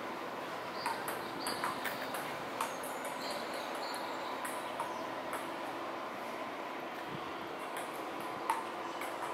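Steady outdoor background noise in a tropical garden, with a few short high bird chirps and scattered light clicks.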